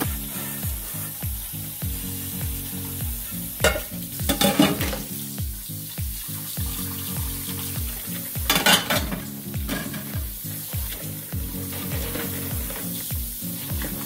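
Tap water running into a stainless steel sink during hand dishwashing, with a clatter of dishes and splashing around 4 seconds and again near 9 seconds. A low steady musical beat plays underneath.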